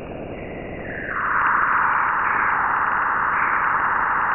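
Sonified space recording presented as the sound of Earth, made by converting the planet's electromagnetic waves into audio: a steady hiss that grows louder and brighter about a second in, then holds level.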